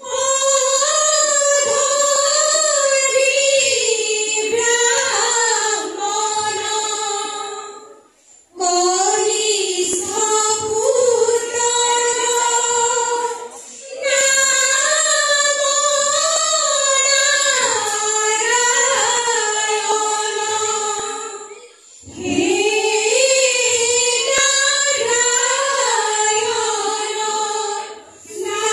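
A group of young women singing dihanaam, Assamese devotional chanting, with no instruments. They sing four long, slow-moving phrases, each broken off by a short breath pause.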